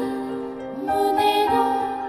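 Slow, gentle lullaby-like music of long held notes; a note slides up into place just before new notes enter about a second in.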